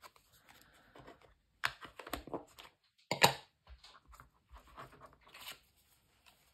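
Ink blending tool scuffing against the edges of a paper card, then small paper cards being handled and tapped down on a cutting mat. Short, scratchy paper sounds and a few sharp taps, the sharpest about three seconds in.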